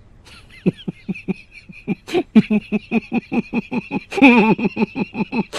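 Laughter in a fast, even run of short 'ha' bursts, about five a second, starting faint and getting louder after about four seconds.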